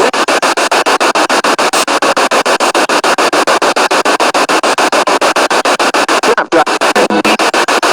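Spirit box radio sweeping rapidly through the band: loud static chopped into a stutter about eight times a second, with a brief break about six and a half seconds in.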